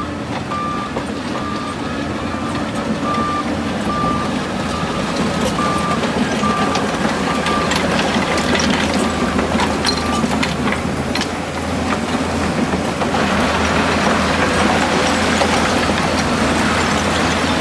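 Heavy construction machinery running steadily, with a reversing alarm beeping at an even pace that stops about ten seconds in. Sharp clanks and rattles come through the middle, and the sound grows louder and brighter in the last few seconds.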